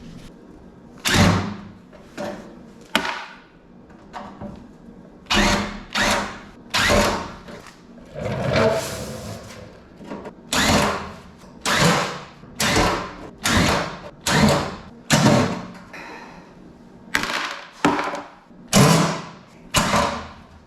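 A run of loud, sharp tool bangs on an old welder's metal parts, about one a second in uneven groups, each dying away quickly, with short pauses between the groups.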